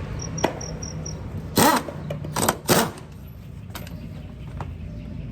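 Small motorcycle engine running steadily, with a few short, loud noise bursts about midway and five quick high beeps near the start.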